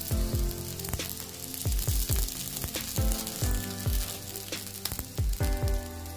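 An aloo paratha sizzles in oil on a hot tawa as a steady crackling hiss. Background music plays over it, with a deep booming beat that drops in pitch on each hit; the beat is the loudest sound.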